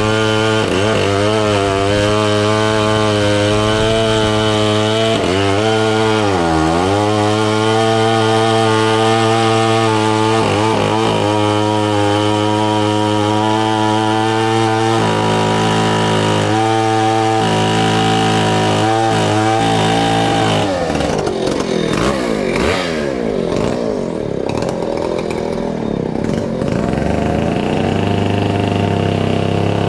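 Old Stihl 090, a large two-stroke chainsaw, running at full throttle while cutting through a bundle of firewood logs. Its note dips sharply several times as the chain bogs down in the wood. In the last third the engine note falls and rises unevenly before steadying again.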